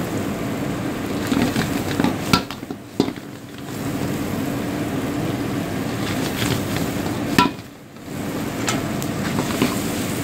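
Lamb pieces with onions and tomatoes sizzling in a hot wok over a high flame while being stirred. A few sharp knocks of the stirring utensil against the metal pan break in, the loudest about seven seconds in.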